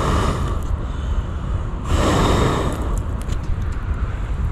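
Someone blowing hard on the embers of a dying campfire to revive it: two long blows, the second about two seconds in and the stronger.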